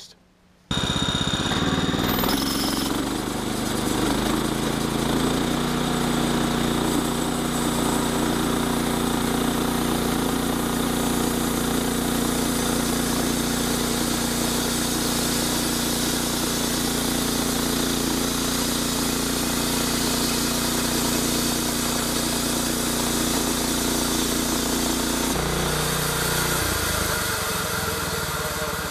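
Gasoline engine of a Norwood LM29 portable bandsaw mill running. It comes in abruptly about a second in and rises a little in pitch over the next few seconds. It then holds a steady speed, and near the end its pitch drops and becomes uneven.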